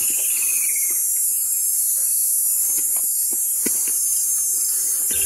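Steady, high-pitched chorus of insects shrilling in hot bushveld, with a falling whistled call near the start and a few faint clicks.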